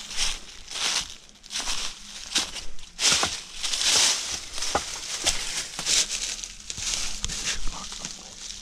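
Footsteps crunching through dry leaves and twigs, a step roughly every half second, with sharp snaps underfoot. The steps are heaviest around three to four seconds in.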